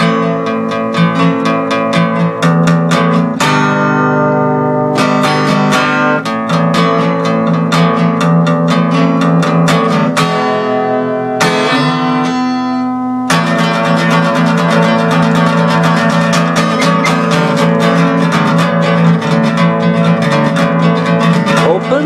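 Acoustic guitar played alone as an instrumental break: strummed chords, some left to ring out. About two-thirds of the way through it turns to steady, quick strumming.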